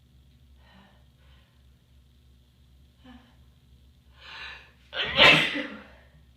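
A person sneezing: a few faint short gasping breaths, a longer in-breath about four seconds in, then one loud sneeze about a second before the end.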